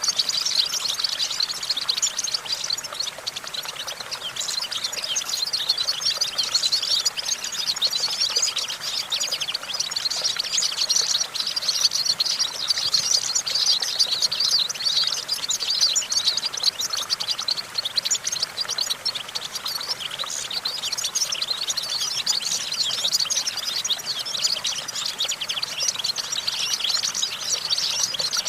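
European goldfinch singing: a fast, continuous, high twittering song of chirps and trills without pause.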